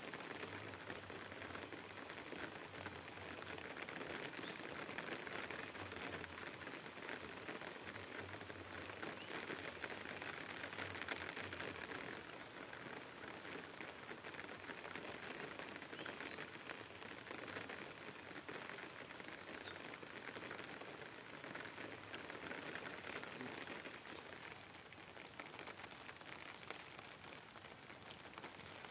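Light rain pattering steadily, a dense crackle of small drops.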